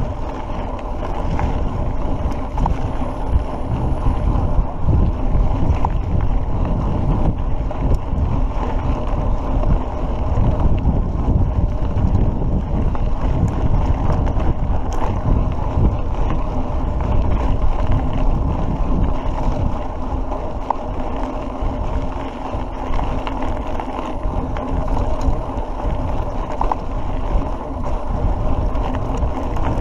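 Steady wind buffeting a bike-mounted action camera's microphone while riding, over the low rumble of mountain bike tyres rolling on a rough dirt track, with a few faint clicks.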